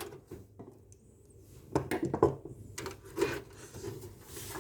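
A motherboard being handled and seated in a metal computer case: a few light clicks and knocks with soft scraping as the board is lined up against the case.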